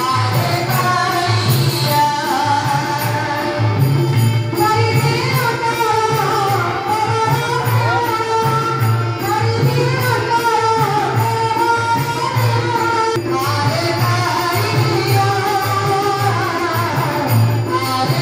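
Indian devotional song: a singer's voice over a steady drum beat.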